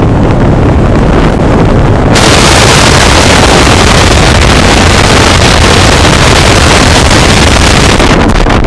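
Loud wind noise rushing and buffeting over the camera's microphone while gliding under an open parachute canopy; the hiss turns brighter about two seconds in.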